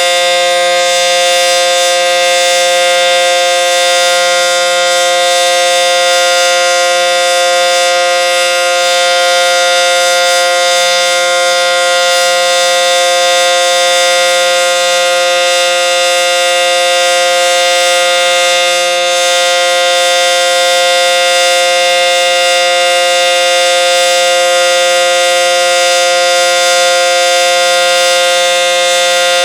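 ACA Banshee 115 outdoor warning siren sounding the steady Alert signal. It is a loud, unwavering sound of several pitches at once, held without rising or falling.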